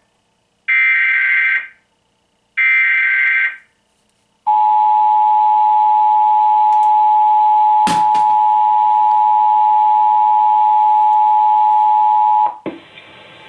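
Emergency Alert System test signal: two one-second bursts of the SAME digital header, buzzy data tones, then the steady two-tone EAS attention signal held for about eight seconds, with a brief click partway through.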